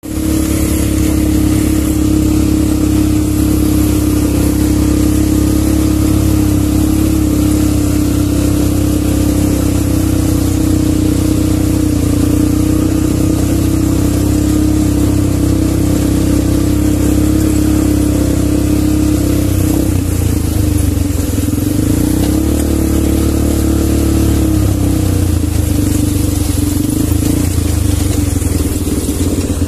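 Quad bike (ATV) engine running at a steady pace. About two-thirds of the way through, the engine note drops and then climbs back up.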